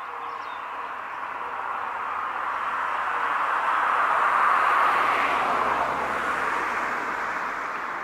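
A vehicle driving past, its road noise swelling to a peak about halfway through and then fading away.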